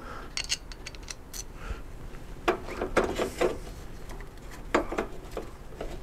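Screwdriver and small pan-head screws being set by hand into a metal mounting plate: scattered light metal clicks and scrapes, busiest about halfway through.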